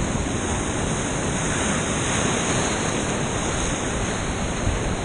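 Big whitewater rapids rushing around a kayak: a steady, even rush of churning water.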